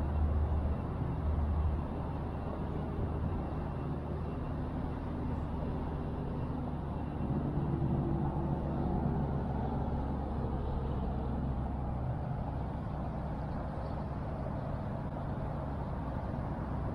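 An engine running steadily with a low drone, its pitched note growing stronger for several seconds in the middle.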